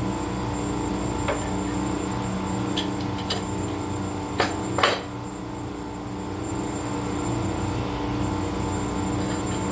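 A handful of short, sharp knocks, like tool strikes on hard parts, over a steady mechanical hum.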